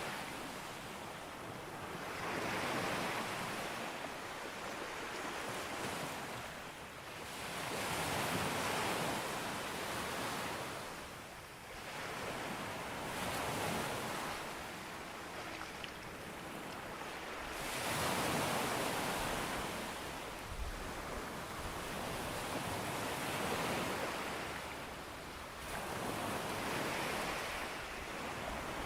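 Sea waves breaking on a beach, the surf swelling and fading about every five seconds.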